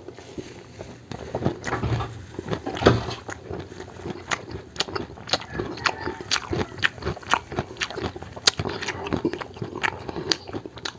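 Close-miked eating sounds: a person chewing and smacking on a mouthful of food, with many sharp wet clicks at a few per second.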